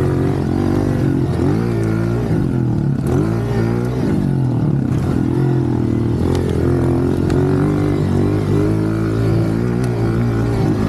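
Honda CRF125 pit bike's single-cylinder four-stroke engine heard from the rider's seat while riding a dirt track, its pitch rising and falling repeatedly as the throttle is opened and closed.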